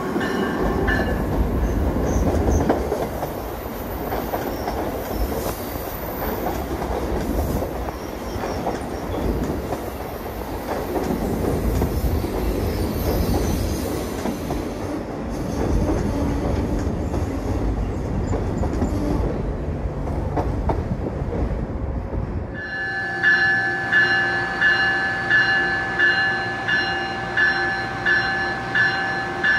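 Amtrak passenger train passing close by, its electric locomotive and cars rumbling and clattering over the rails. About three-quarters of the way through, a standing Amtrak ACS-64 electric locomotive's bell takes over, ringing steadily about twice a second.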